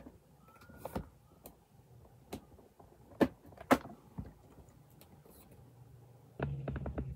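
Scattered knocks and taps from the camera or phone being handled and repositioned, with a short low hum near the end.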